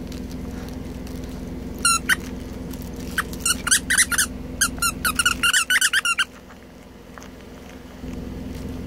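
Squeaker in a plush dog toy squeaked over and over as a dog chews it: a quick run of short, high squeaks in the middle, over a steady low hum.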